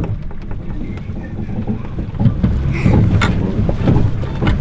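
Oars working in the metal oarlocks of a small rowboat, with a knock at each stroke roughly once a second, over a steady rumble of wind on the microphone.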